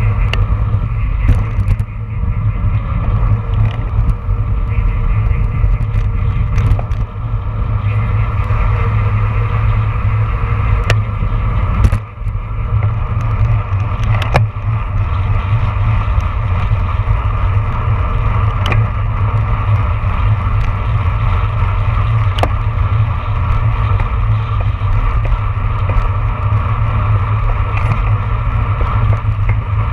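Wind buffeting the microphone of a handlebar-mounted camera on a road bike ridden at race speed, a steady heavy rumble over tyre noise from the road, with a few sharp clicks and knocks from the bike.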